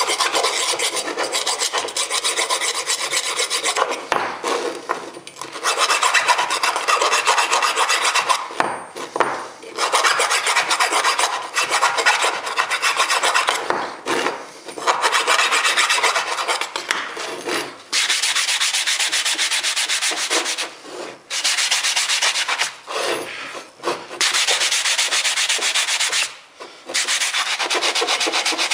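A small metal clamp part being filed or abraded by hand: rapid back-and-forth rasping in stretches of a few seconds, broken by short pauses.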